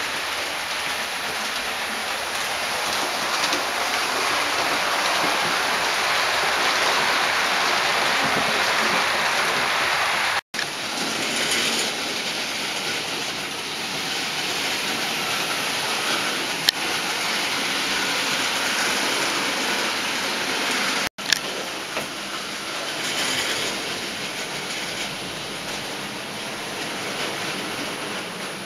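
Model trains running on a model railway layout: a steady whirring rattle of wheels on track and small motors, dropping out abruptly twice where the clips are joined.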